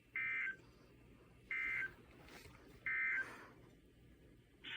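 Emergency Alert System end-of-message signal: three short two-tone digital data bursts, evenly spaced about a second apart, closing the alert. Another sound starts just at the end.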